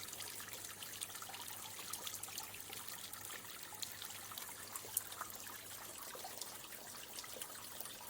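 Water trickling and dripping in a pit: a steady hiss dotted with many small drips and pops, with one sharper drip about five seconds in.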